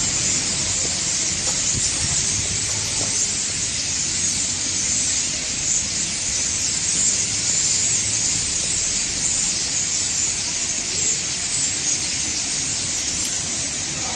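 A large flock of birds calling all at once from a tree, their many voices blending into a loud, steady, high hiss with no single call standing out.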